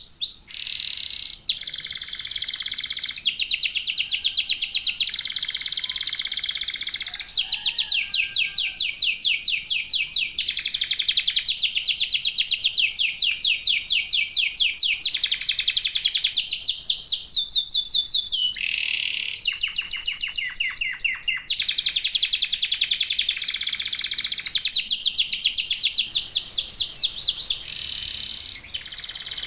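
Domestic canary singing a long continuous song of fast trills, switching to a new trill every second or two.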